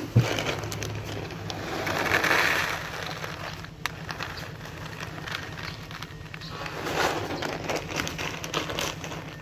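Dry cat kibble poured from a plastic bag into a clear plastic tray, a rattling patter loudest about two seconds in. Two sharp knocks right at the start.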